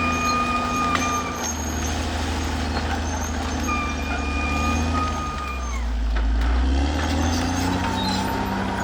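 Caterpillar D6R XL bulldozer running with a steady low diesel drone and a high whine over it. The whine stops about halfway through and the engine note deepens for a moment, then another whine starts near the end.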